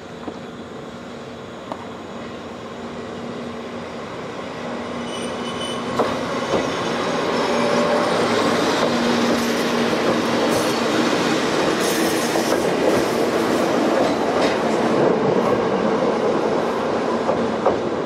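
Blue-and-cream electric passenger train passing close by, growing louder as it approaches and then holding steady. Its wheels knock over rail joints a few times about six seconds in.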